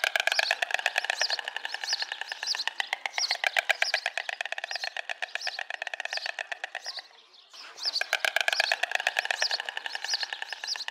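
An animal calling in a rapid, pulsing stream with a higher chirp repeating over it, in two long bouts with a short break about seven seconds in.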